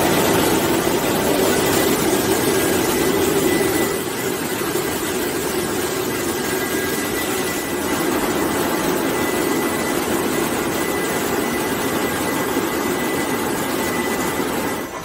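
French fry production line conveyors running: a steady mechanical drone with a faint high whine above it. The drone drops slightly about four seconds in.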